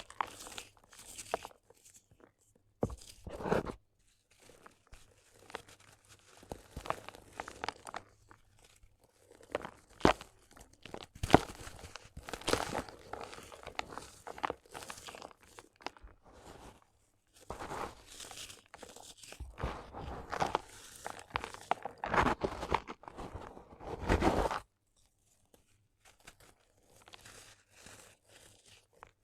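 Gritty sand cement crunching and crumbling in irregular bursts, with a few sharp cracks. It goes much fainter near the end.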